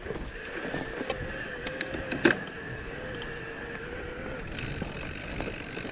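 Mountain bike ridden over a rough trail: steady tyre and rattle noise with scattered knocks, the loudest a sharp clack about two seconds in. A steady whine runs under it and stops about four seconds in.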